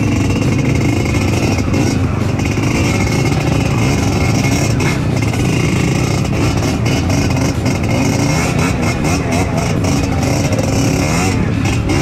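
Trail motorcycle engine running on the move, its pitch rising and falling with the throttle, over a dense rushing and clattering noise.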